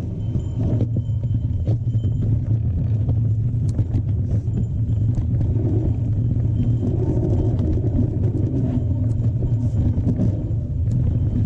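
Mountain bike riding over a rough trail: a steady low rumble of tyres and wind on the microphone, with scattered clicks and rattles from the bike over bumps.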